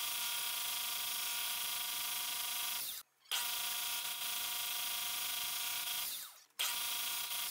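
Metal lathe running fast while a carbide boring bar cuts a shallow pass inside a 316L stainless steel ring blank: a steady whine of several stacked high tones over a hiss. It cuts out abruptly twice for a fraction of a second, about three and six seconds in.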